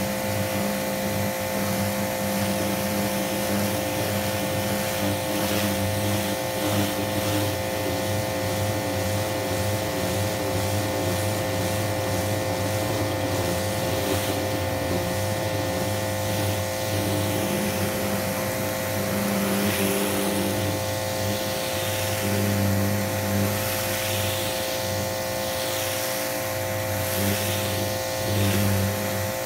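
A 2000 PSI electric pressure washer running steadily, its motor and pump humming under the hiss of the water jet on wooden fence boards. The hiss swells and fades as the spray moves, more so in the second half.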